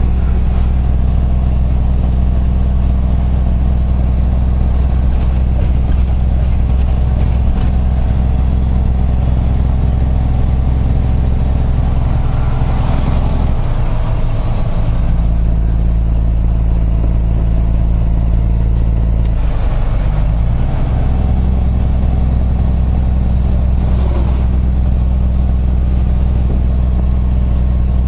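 Kenworth truck's diesel engine heard from inside the cab while driving on the highway: a loud, steady low drone. The engine note breaks and changes about halfway through, and again with a brief rising glide a few seconds later.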